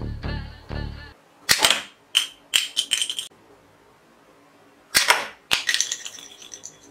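Background music cuts off about a second in. After that an orange plastic toy pistol fires plastic bullets with sharp snapping shots, each set followed by a short rattle of light plastic pieces landing.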